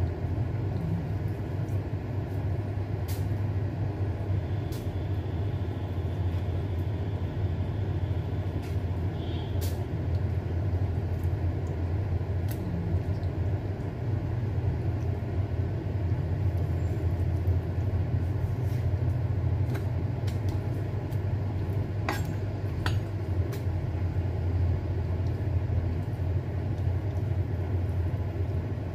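A steady low hum runs throughout, with a few scattered light clicks of a knife against a wooden cutting board as raw chicken breast is sliced.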